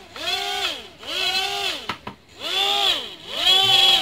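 Twin small electric motors and propellers of a micro RC plane, motors taken from an FX803 Super Cub, whining up and falling back about four times as the throttle is pushed up and down.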